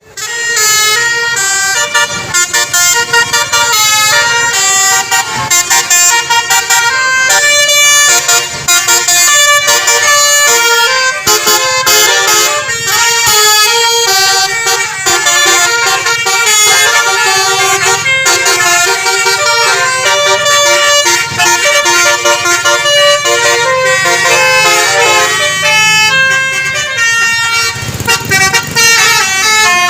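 Tour bus's Basuri 'telolet' multi-tone horn playing quick tunes of many short notes, loud and nearly continuous.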